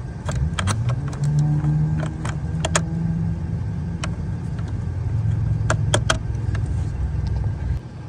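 Scattered sharp clicks and light knocks of a hand working a cable and plastic connectors beside a truck's battery junction box. Under them runs a steady low hum that rises slightly in pitch about a second in and drops away shortly before the end.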